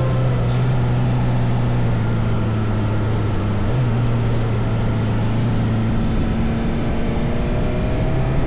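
Motorcycle running at a steady speed: a constant engine drone under wind and road noise.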